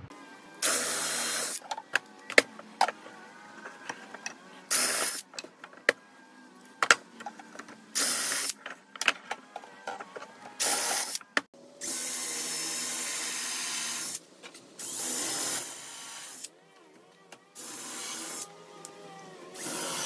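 Power drill boring pilot holes through a wooden handrail and block: about eight short bursts of drilling, the longest about two seconds, with clicks and knocks between them.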